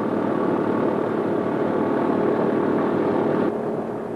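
A B-17's Wright Cyclone radial engines running steadily at warm-up speed, a dense steady drone that cuts off abruptly about three and a half seconds in.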